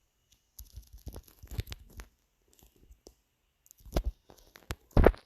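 Scattered clicks, taps and crinkling handling noises close to the microphone, with two louder thumps about four and five seconds in.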